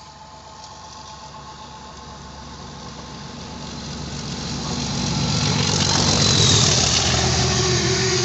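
Diesel locomotive hauling coaches approaching at speed, its engine and wheel noise growing steadily louder over several seconds to a peak near the end.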